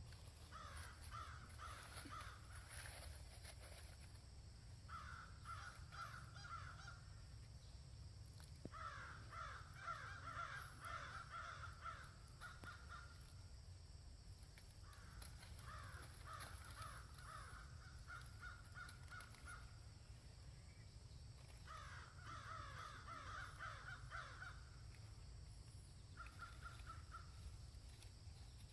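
Animal calls in about six bursts of rapid repeated notes, each lasting one to four seconds, heard faintly over a steady low rumble.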